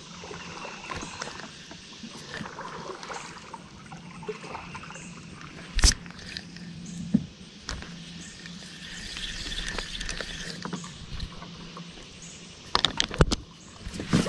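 Plastic kayak on the water: soft water noise and small movements, over a faint steady hum. There are sharp knocks about six and seven seconds in, and a quick cluster of knocks near the end.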